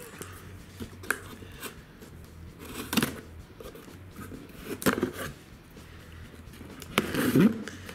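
Kitchen knife slicing through packing tape on a cardboard shipping case, with scattered scrapes and knocks of the box being handled; the longest, loudest scrape comes near the end.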